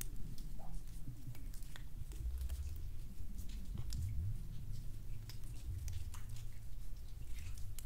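Cave ambience built from layered sound effects: a low, wavering rumble under scattered, irregular sharp ticks and clicks.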